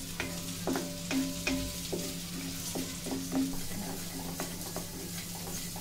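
A wooden spatula stirs and scrapes urad dal roasting in a metal kadhai, in quick strokes about twice a second, with the dal faintly sizzling. A steady low hum runs underneath.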